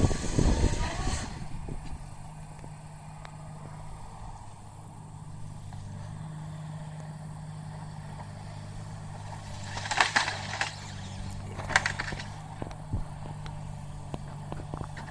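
Excavator's diesel engine running steadily, with a loud crunching noise in the first second and two short, sharp bursts of noise about ten and twelve seconds in.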